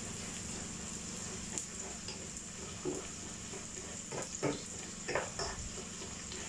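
Sliced onions sizzling softly in oil in an aluminium pot as a wooden spatula stirs them, with several short scrapes and knocks of the spatula against the pot, most in the second half. A steady low hum runs underneath.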